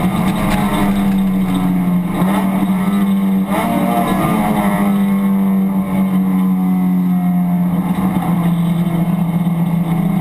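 Honda Civic Si race car's four-cylinder engine running hard at racing speed, heard from inside the stripped cabin. There are brief dips in the engine note about two seconds in and again about three and a half seconds in.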